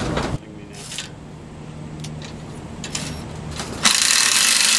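Cordless drill driving a screw through a metal brace at the solar collector mount. A loud, even grinding hiss starts about four seconds in, after a few light clicks and knocks.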